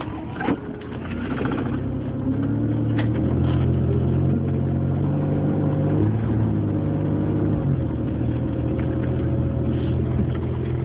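Car engine running steadily while driving, louder and slightly higher in pitch from about two seconds in as it pulls under load. A couple of sharp clicks are heard, one in the first second and another about three seconds in.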